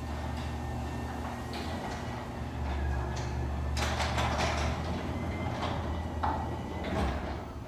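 Aluminium full-view glass garage door moving on its tracks under a LiftMaster opener: a steady motor hum with rollers and panels rattling and clattering through the travel.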